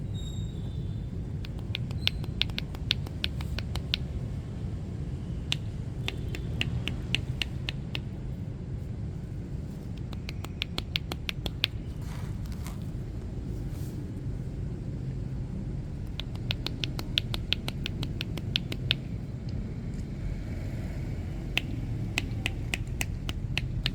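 Rapid percussive massage strokes, hands tapping or chopping on the back, in bursts of about two seconds with short pauses between, over a steady low rumble of street background.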